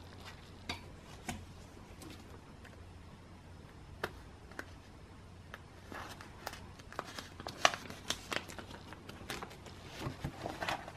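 Faint rustling and scattered light clicks of plastic photocard binder pages being handled. The clicks come more often in the second half.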